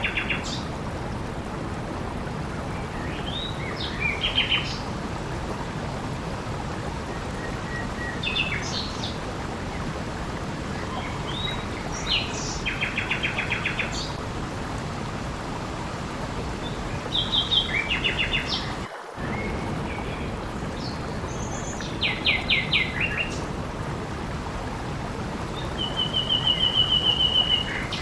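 A songbird singing short phrases every few seconds, several ending in a fast run of repeated notes, over a steady hiss of water. The sound cuts out for an instant about two-thirds of the way through.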